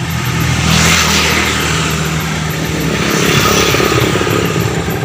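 A vehicle engine running, with a steady low hum and two swells of hiss, about a second in and again near three and a half seconds.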